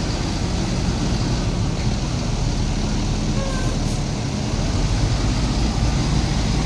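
Mercedes-Benz coach's diesel engine running as the bus pulls slowly away, a steady low rumble that grows a little louder near the end.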